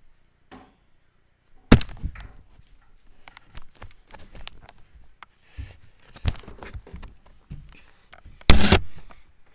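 Handling noise on the recording device's built-in microphone as it is picked up and carried: a loud bump about two seconds in, a string of smaller knocks and rubs, and a second, longer loud bump near the end.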